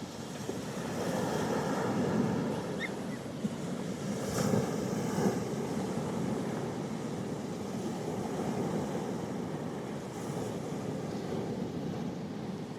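Sea waves washing onto the shore: a continuous rushing surf that swells and eases every few seconds.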